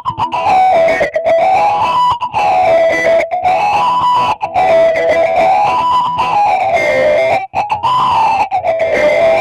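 Electric guitar played through a filter-type effect pedal with its resonance turned up, so a nasal peak in the tone sweeps slowly up and down about every two seconds. The notes come in steady phrases with brief gaps between them.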